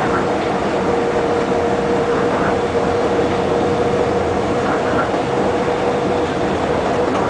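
Steady running noise of a moving vehicle, with a constant humming tone over an even rumble; the hum drops away about six seconds in.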